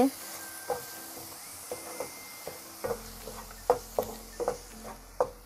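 A spatula stirring wet ground coconut-chilli paste in hot oil in a pan: a steady sizzle with short scraping knocks roughly twice a second.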